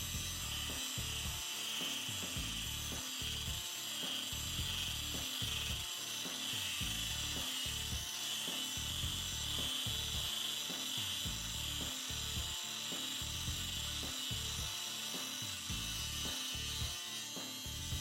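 Ridgid Octane 18V brushless cordless angle grinder with a metal cut-off wheel cutting through thick steel: a steady high whine over a grinding hiss, unbroken throughout.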